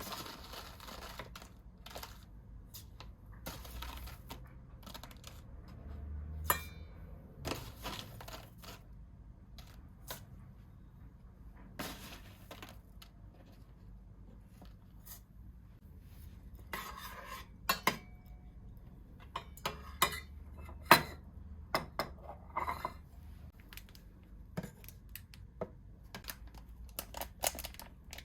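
Dishes and cutlery clinking and knocking in a kitchen: scattered sharp clinks and taps, a few short stretches of rustling or scraping, and a busier run of clinks in the second half.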